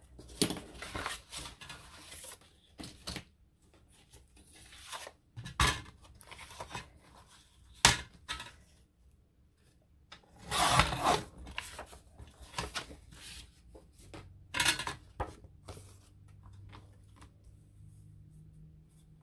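Paper and card being handled and rubbed: irregular rustling and scraping, with a sharp tap about eight seconds in and a longer scrape around eleven seconds.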